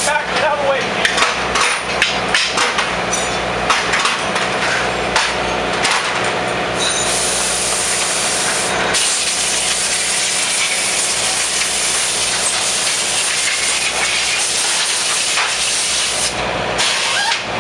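A pit crew working on a Top Fuel engine teardown: metal tools and parts clatter and knock repeatedly, then a long, steady, loud hiss begins and cuts off near the end.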